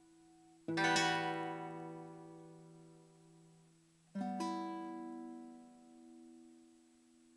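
Closing bars of a piece on a plucked string instrument, most like an acoustic guitar: two chords struck about three and a half seconds apart, each left to ring out and fade.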